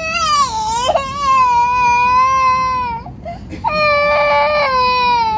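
A young boy crying: two long, high wails, the second starting about three and a half seconds in.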